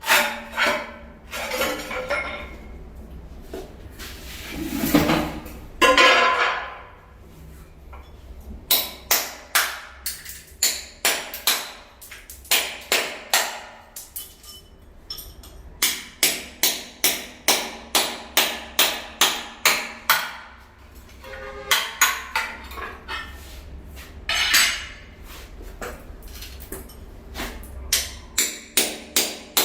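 Hammer striking over and over in quick runs of sharp, slightly ringing knocks, about two to three a second, as tile work is done. A few scraping sounds come between the runs.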